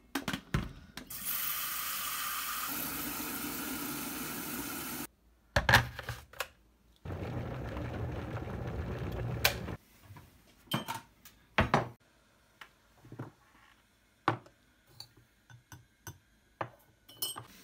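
Tap water running into an electric kettle for about four seconds, its pitch changing partway through as the kettle fills, then a few sharp clicks and knocks as the kettle is closed and set down. The electric kettle heating with a low rumbling hiss for a few seconds, cutting off suddenly. Then scattered clinks and knocks of lids, jars and a mug, among them a wooden canister lid being lifted near the end.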